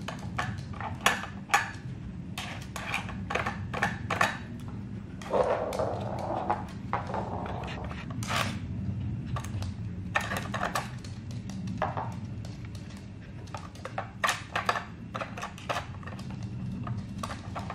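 Plastic clicks and knocks from a Trixie Flip Board dog puzzle as a small dog noses open its lids and lifts its cones after treats: irregular taps, with a short scraping rattle about five or six seconds in. A steady low hum runs underneath.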